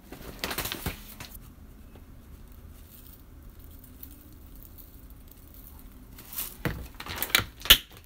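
White sesame seeds sprinkled onto a bowl of noodles, pattering and rustling in two bouts: one about half a second in, and a louder one from about six seconds in that ends in a few sharp ticks.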